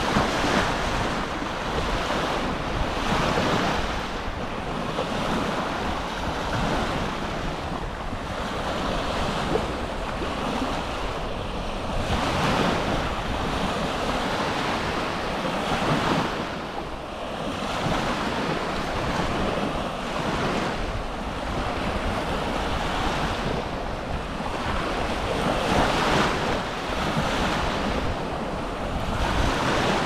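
Small waves breaking and washing up a sandy beach, the surf noise swelling and fading every few seconds, with wind rumbling on the microphone.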